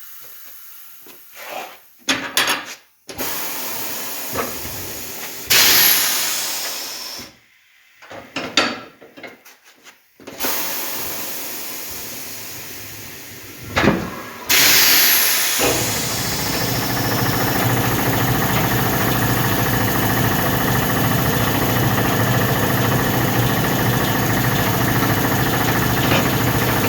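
Tire changer machine at work: several separate bursts of compressed-air hissing, then about eleven seconds from the middle onward an electric motor running steadily with a low hum.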